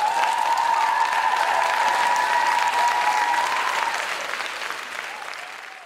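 A theatre audience breaks into thunderous applause, which thins out and fades over the last couple of seconds. A steady high tone rides over the clapping for about the first four seconds.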